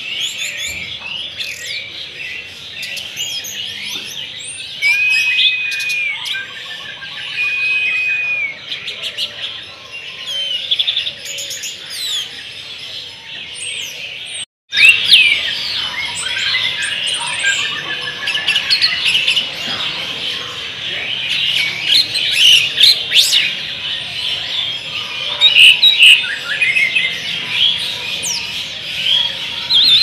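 Many caged songbirds chirping and singing at once, a dense overlapping chorus of chirps and warbles. In the first half there are two long, clear whistled notes. The sound drops out for an instant just before halfway, and the chorus comes back louder.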